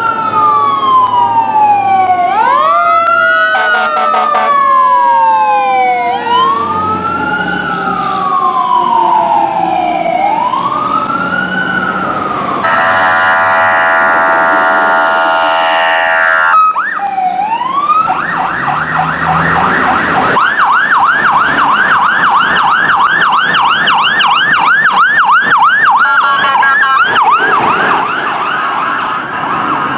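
Fire rescue trucks' sirens sounding as they respond: a wail falling and rising for about twelve seconds, then a long steady air horn blast. After a cut, another siren winds up and switches to a fast yelp, about three sweeps a second, near the end.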